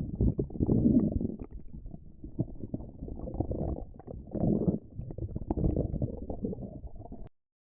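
Stomach growling and gurgling: a continuous low rumble with many small pops, swelling about a second in and again a little past the middle, then cutting off suddenly near the end.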